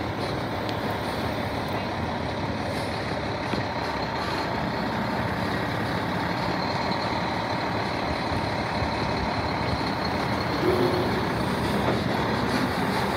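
Diesel engine of a semi-truck towing a large box trailer, running steadily as the rig drives slowly past, a little louder near the end.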